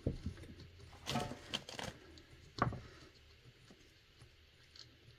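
Light handling noises of small parts at a workbench: a few scattered clicks and taps, the sharpest about two and a half seconds in.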